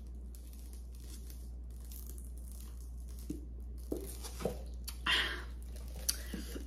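Gloved hands handling food and containers: crinkling and rustling, with a few light knocks and rustles from about halfway through, over a steady low hum.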